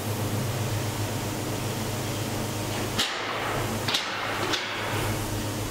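Steady low hum of running machinery, with three sharp metallic clacks about three, four and four and a half seconds in as the latch and handle of a sheet-metal oven door are worked.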